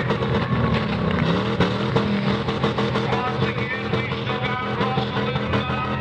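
Rock music playing loudly, with demolition derby car engines revving underneath.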